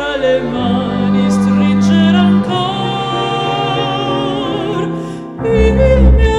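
Operatic soprano singing held notes with vibrato over a small classical orchestra with bowed strings, cello among them. About five seconds in the music dips briefly, then a new phrase starts over a strong deep low note.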